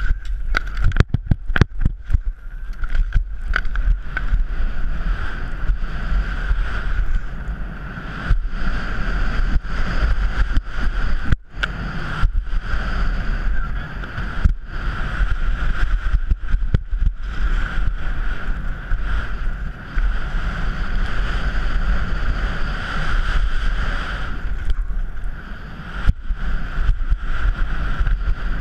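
Wind buffeting a helmet-mounted GoPro's microphone and skis scraping over hard-packed snow at speed on a ski cross run, a loud steady rush with a deep rumble. A few sharp knocks in the first couple of seconds as the run gets going.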